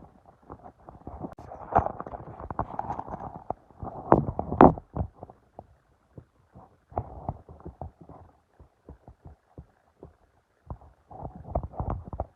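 Irregular footsteps and muffled thumps as someone walks about on foot, with a louder cluster of knocks about four to five seconds in.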